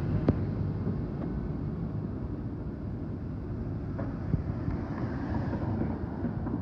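Steady street-traffic rumble with wind buffeting the microphone; a car drives past close by midway, and there is a short sharp knock just after the start.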